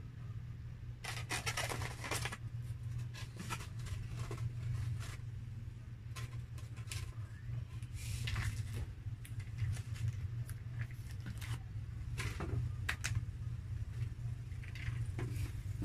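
Styrofoam takeout clamshell boxes being opened and handled, with scattered rubs, scrapes and creaks and a denser rustle about a second in, over a steady low hum.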